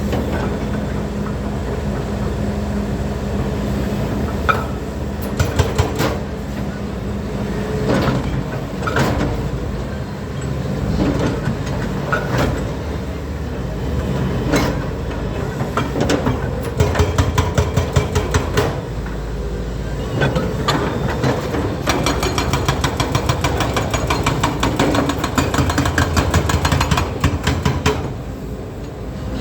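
Hydraulic excavator's diesel engine running, with scattered sharp metal clanks and knocks. About halfway through, and again for most of the last third, there is a fast run of knocks.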